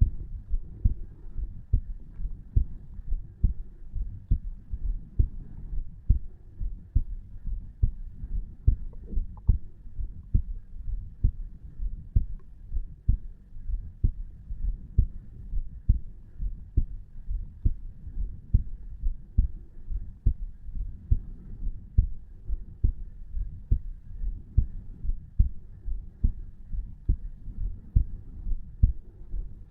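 A resting adult human heartbeat, recorded close up over the tricuspid valve: a steady, even run of low, dull thumps at around 60 to 70 beats a minute.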